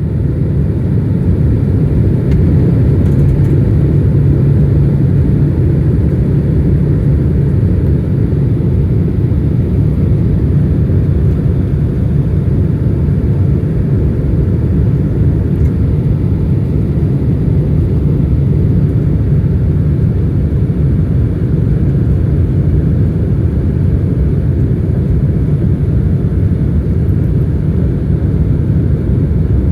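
Boeing 767-300 airliner during its landing approach: a steady, unchanging low rumble of jet engines and airflow.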